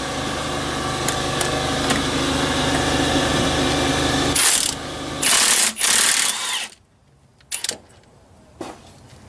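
Impact wrench on an 18 mm socket hammering steadily at a bolt. It stops about four seconds in and gives three short, louder bursts, then a few faint clicks.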